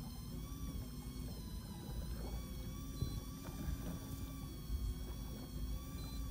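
Electric fishing reel winding in a hooked chicken grunt (isaki). Its motor whine wavers in pitch as the fish pulls on the bent rod, over the low rumble of the boat's engine.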